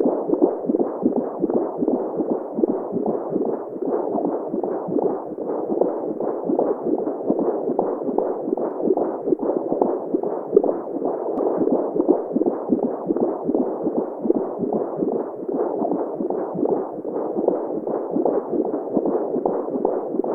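Womb sound with a mother's heartbeat: a muffled, steady whooshing that pulses continuously, the kind of sound a baby hears in the womb, used as white noise for sleep.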